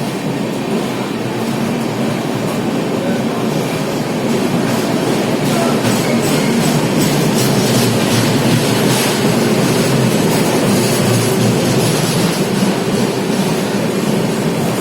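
Railway train running on the track: a steady rumble that grows a little louder after about four seconds, with faint clicking of wheels over rail joints.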